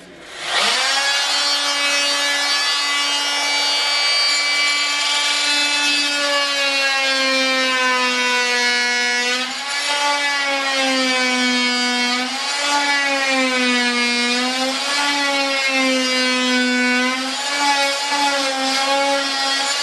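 Oscillating multi-tool cutting a shallow channel in wood: a steady, strongly pitched buzz that starts about half a second in. Its pitch sags and wavers again and again as the blade is pressed into the cut.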